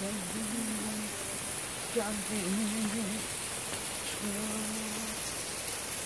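Water falling in thin streams down a moss-covered rock face and spattering onto the stone below, a steady rain-like hiss.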